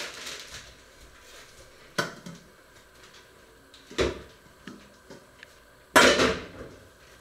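Three sharp knocks about two seconds apart, each followed by a short rattle; the last, about six seconds in, is the loudest and longest, with a clatter trailing off after it.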